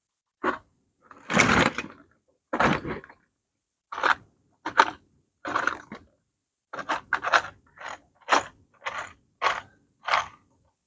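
A series of short scraping strokes, irregular at first, then coming about twice a second in the second half.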